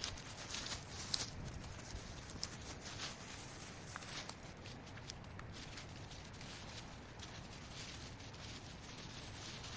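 Footsteps and dry twigs and leaves crackling in brush, with scattered snaps, over a steady outdoor hiss.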